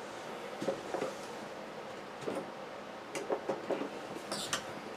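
Faint, scattered small clicks and taps of multimeter probe tips being moved and set down on the pins of a circuit-board chip, a few coming closer together in the second half.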